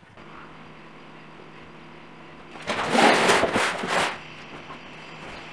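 Large cardboard boxes pushed and slid across a floor: a loud scraping rush lasting about a second and a half, starting about two and a half seconds in, over a steady low hum.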